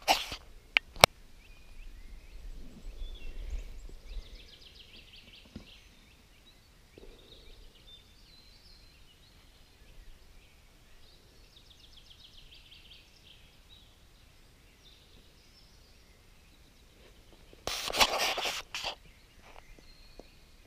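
Quiet lakeside ambience with a songbird's trilled song heard twice, about eight seconds apart. A sharp click comes about a second in, and a brief rustle near the end.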